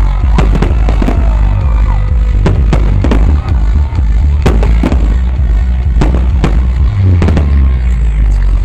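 Aerial fireworks shells bursting in a quick, irregular series of bangs, about two or three a second, over loud music with a heavy bass.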